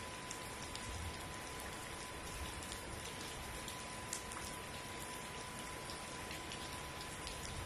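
Steady rain falling, with scattered drops striking nearby surfaces as faint ticks. A faint thin steady tone runs underneath.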